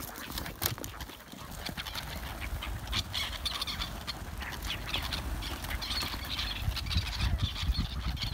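Partridges flushing out of release crates: a flurry of fluttering, whirring wingbeats with scattered clicks and knocks, busier from about three seconds in.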